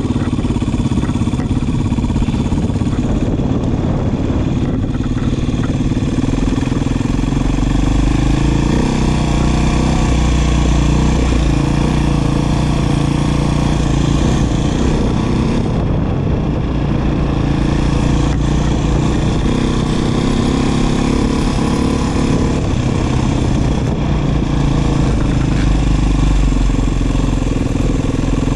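Beta 500RR dirt bike's single-cylinder four-stroke engine running while being ridden. Its pitch rises and falls several times as the throttle opens and closes.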